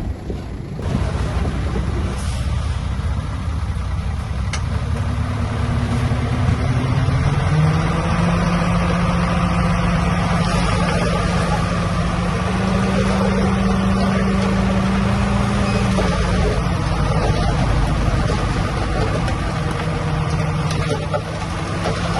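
Diesel engine of heavy earthmoving equipment working under load. It revs up about a third of the way in, runs higher still for a few seconds, then drops back about two-thirds of the way through.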